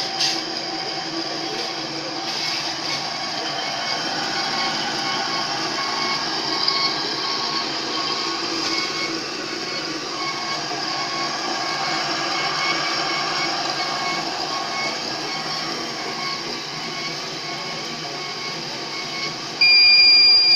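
REX Mantis 180 band saw running and cutting through metal: a steady machine noise with a high, held squeal from the blade. Near the end a loud, steady beep starts.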